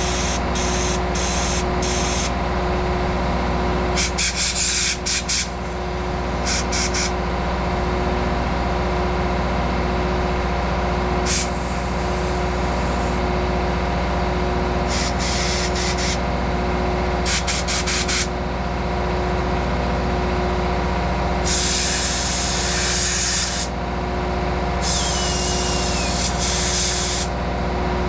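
A compressed-air blow gun blows out the parts and jets of a Solex carburetor, clearing gunk softened by carburetor cleaner. It comes in a string of short hissing blasts, then two longer blasts of about two seconds each near the end, over a generator running steadily.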